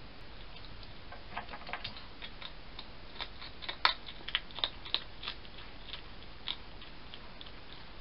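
A hedgehog at the entrance of a feeding box making irregular sharp clicks and crackles as it noses in and feeds. The clicks come in clusters, the loudest about four seconds in.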